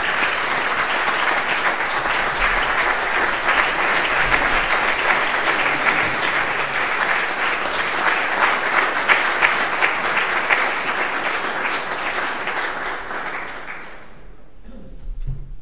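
An audience applauding at length after a lecture ends, dying away about fourteen seconds in.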